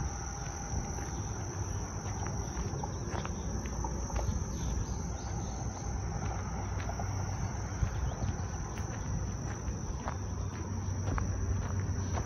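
Insects, crickets by the sound, chirring in a steady high-pitched drone, over a low rumble and scattered light clicks of footsteps.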